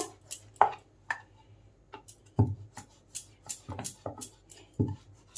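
Wooden rolling pin rolling a bread slice flat on a round wooden board: irregular light clicks with a few dull knocks of wood on wood.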